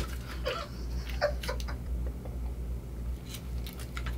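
A champagne cork pops out of the bottle with one sharp crack right at the start. After it come a few faint short squeaks and light clicks over a low steady hum.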